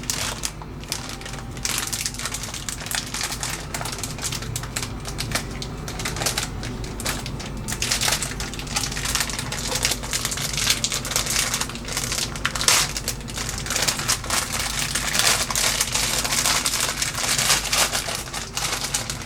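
Eggs frying in butter in a pan: a steady, dense crackling sizzle.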